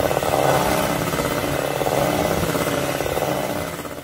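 Electric hand mixer running steadily at speed, its twin beaters whipping a white icing mixture in a stainless steel bowl; the motor sound trails off near the end.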